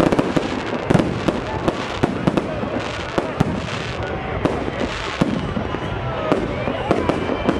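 Aerial fireworks shells bursting overhead in a rapid, irregular series of bangs, with a continuous din beneath them.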